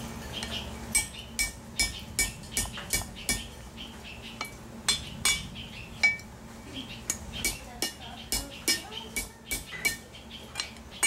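Hand hammer striking red-hot mild steel square stock on the anvil horn, curling the end into a hook. Each blow gives a sharp, ringing metallic clink, about two to three a second, with a short break about a third of the way in.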